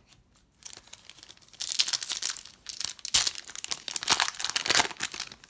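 A trading-card pack's plastic foil wrapper being torn open and crinkled by hand. The crackling starts about half a second in and grows louder after about a second and a half.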